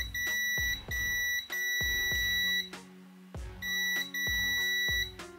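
A multimeter's continuity beeper sounding a steady high beep in five stretches of varying length as the probes touch and lift, showing that the brush motor's connector is wired straight to the battery connector. Background music with plucked low notes plays underneath.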